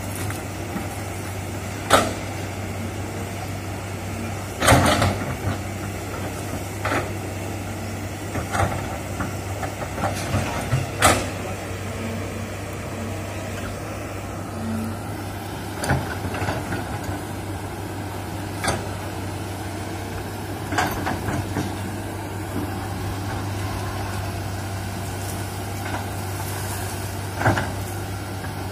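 Crawler excavator's diesel engine running steadily, with sharp knocks and cracks every few seconds as the bucket pushes into and breaks oil palm trees.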